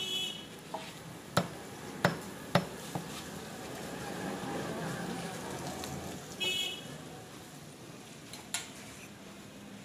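Heavy meat cleaver chopping meat on a wooden log butcher's block: three sharp chops in quick succession about a second and a half in, and one more near the end. Two short horn toots sound, one at the start and one about six and a half seconds in.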